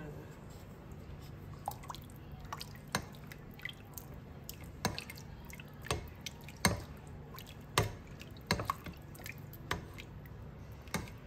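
A ladle stirring watery rice porridge in a pot: liquid sloshing, with irregular clicks and knocks of the ladle against the pot, the loudest about seven to eight seconds in. A faint steady low hum lies underneath.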